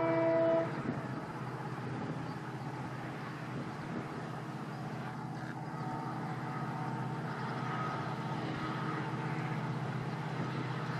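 Diesel locomotive hauling a passenger train: a short multi-tone horn blast lasting about half a second at the start, then the diesel engine running with a steady low drone.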